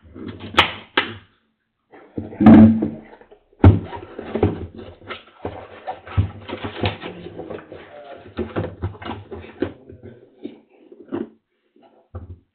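Gloved hands handling packaging: plastic wrap crinkling and a cardboard shipping box rustling and being shifted, in irregular crackly bursts. The loudest burst comes about two and a half seconds in.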